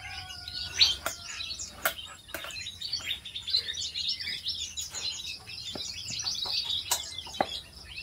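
Many small aviary birds chirping and twittering at once, a dense overlapping chorus. A few sharp knocks cut through it, the loudest about a second in, as cut papaya is set down and handled on a wooden table.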